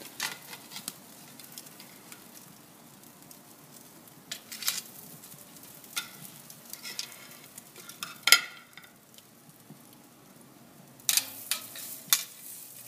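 Metal tongs clacking against a hot kamado grill grate and plate as breaded raw chicken thighs are laid on, several sharp clacks with the loudest about two-thirds through. A faint sizzle runs underneath from the chicken meeting the hot grate.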